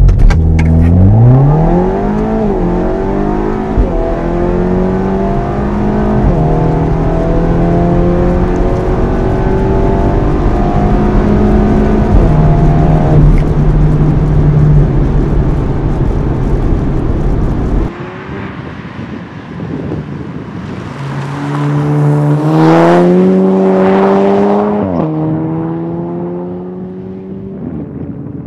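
Audi A4 B9 allroad with a stage 2 tune, catless downpipe and straight-piped Vibrant resonator and muffler exhaust, accelerating hard through the gears as heard from inside the cabin; the engine note climbs and drops back at each upshift. About two-thirds of the way in, the sound is heard from outside the car: it revs up through another gear change, then fades as the car drives away.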